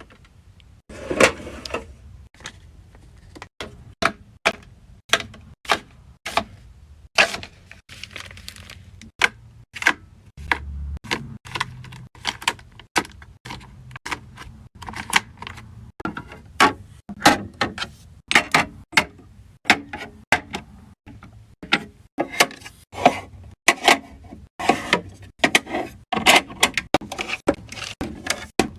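Skincare bottles, jars and tubes being handled and set down while a skincare mini fridge is restocked: a run of irregular sharp clicks and taps of plastic and glass, several a second at times, with a few short rustles.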